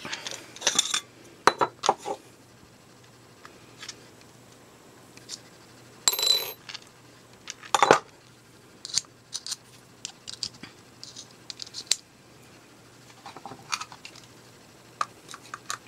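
Small tools and screwdriver bits being handled: a series of sharp clicks and light metallic clinks as a plastic screwdriver bit set is opened and bits are picked out, with a short scraping rub about six seconds in and a louder click just before eight seconds.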